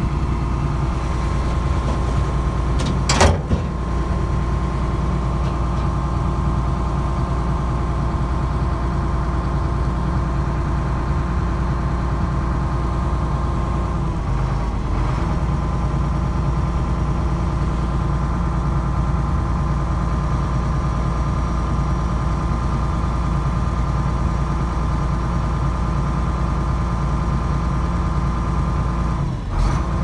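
Excavator's diesel engine running steadily at a constant pitch, with one sharp knock about three seconds in.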